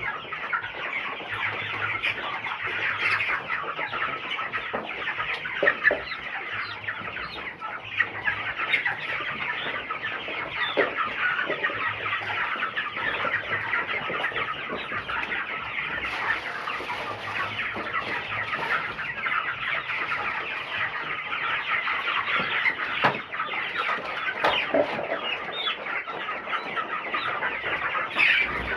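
A large flock of broiler chickens about four and a half weeks old, peeping and clucking together in a dense, continuous chatter.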